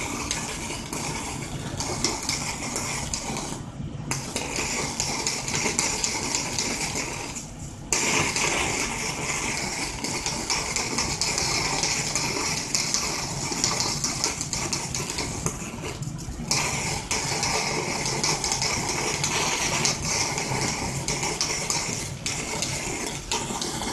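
High-voltage plasma arc from a double-flyback-transformer driver burning against a salmon patty to sear it: a steady, loud crackling buzz and hiss over a low hum. It cuts out briefly three times.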